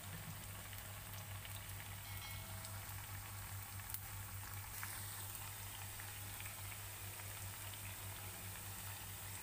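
Pieces of tempeh sizzling steadily as they fry in hot oil in a wok, with a few faint crackles, over a steady low hum.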